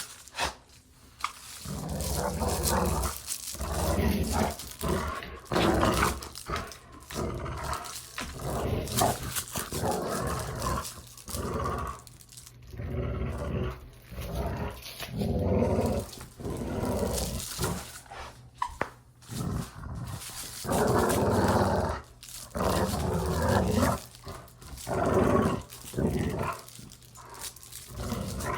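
A dog growling in play, in repeated bouts of one to two seconds with short gaps between them.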